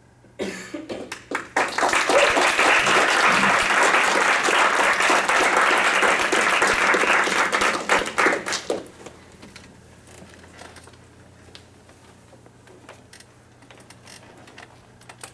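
Audience applauding: a few scattered claps quickly build into steady applause that lasts about six seconds, then dies away to a few stray claps.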